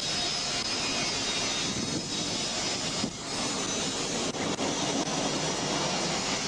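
A steady, loud rushing noise with no clear pitch.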